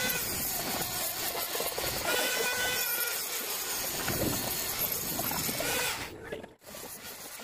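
Handheld electric die grinder running at high speed against a steel crankshaft, a high whine over a grinding hiss. It cuts off suddenly about six seconds in.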